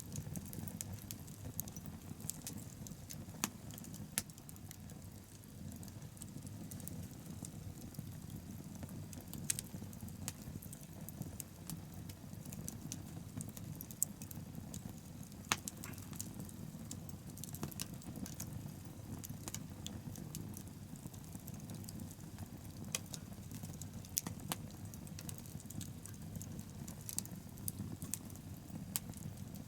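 Wood bonfire burning with a steady low rumble and irregular crackling, several sharper pops standing out among the small snaps.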